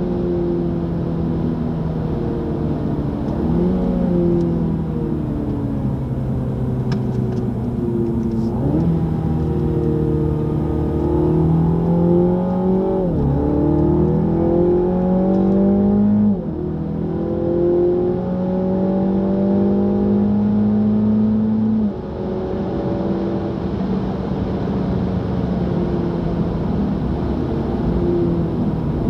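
Mini John Cooper Works GP's turbocharged four-cylinder engine at full throttle around a track, heard from inside the cabin. Its pitch climbs steadily under acceleration and falls abruptly several times.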